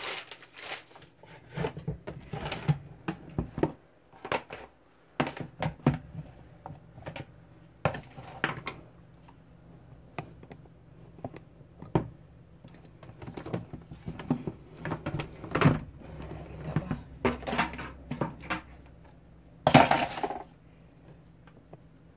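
Cookware being handled: irregular knocks, clinks and scrapes of utensils against a cooking pot, with the loudest clatter near the end.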